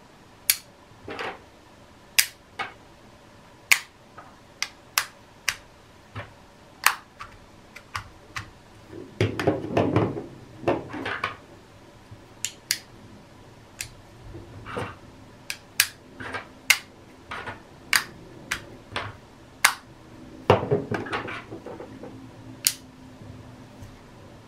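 Clear 3D-printed UV-resin rings with embedded neodymium magnets clicking together as they are snapped onto one another: sharp clicks about once a second, with two longer spells of plastic rubbing and rattling, one near the middle and one toward the end.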